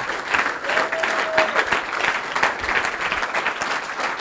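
Audience applauding, a dense and steady clapping from a seated crowd.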